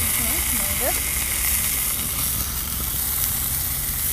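Sliced sausages sizzling in a small pan over a portable gas canister stove, with the steady hiss of the burner underneath.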